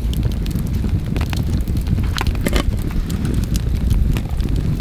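Wood fire burning in an open fire pit: scattered sharp crackles and pops from the logs over a steady low rumble.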